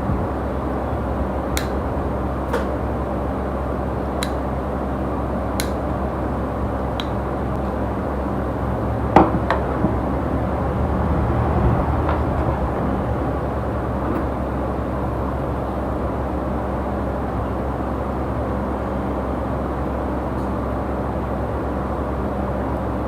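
Steady background hum with a series of sharp clicks, typical of toenail nippers snipping through nail, spaced a second or two apart over the first half. The loudest is a double snip about nine seconds in.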